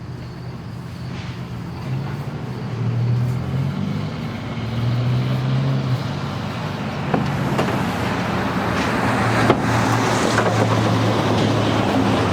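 A truck driving by on the road, its low engine drone getting louder, with road noise building in the second half.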